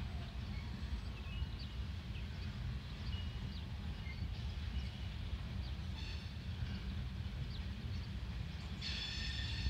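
Loaded coal hopper cars rolling slowly past, a steady low rumble of wheels on rail. Short high bird chirps sound over it, with a brighter burst about six seconds in and another near the end.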